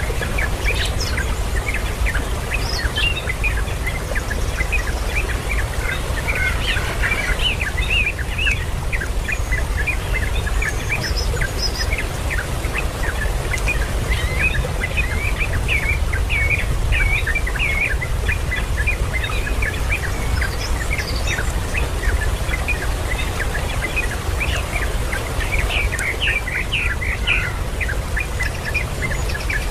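Birds chirping: many short, rapid high chirps, densest toward the middle and near the end, over a steady low rumble.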